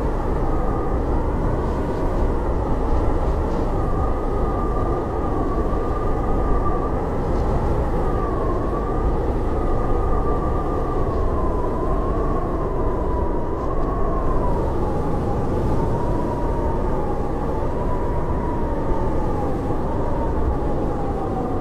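Howling blizzard wind: a steady rush of wind with a whistling tone that slowly wavers up and down in pitch.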